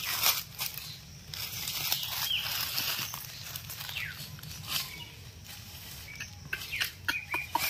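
Rustling and crackling of leaves and undergrowth as the goat and the man move about, with a few brief bird chirps.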